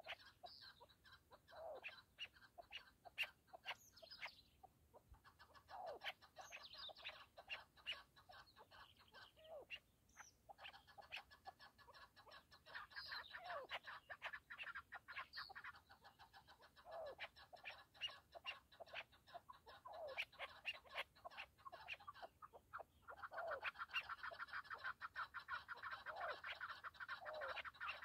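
Chukar partridges calling: long runs of rapid chattering notes with short falling calls repeating every second or two, building to a dense, continuous chatter near the end.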